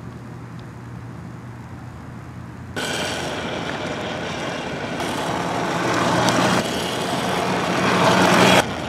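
Electric-converted Baja Dirt Bug mini bike being ridden: a low steady hum, then a sudden rush of running noise about three seconds in. The noise swells twice and cuts off sharply shortly before the end.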